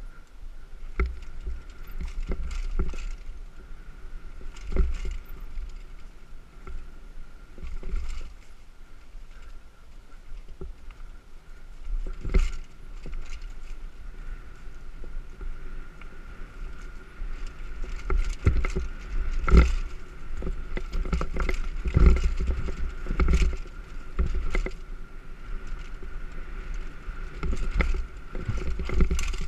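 Specialized Demo 8 downhill mountain bike rolling fast over rough dirt singletrack, heard from a helmet camera: a steady wind rumble on the microphone with repeated sharp knocks and clatter as the bike hits bumps, busier and louder in the second half. Under it runs a faint steady whine.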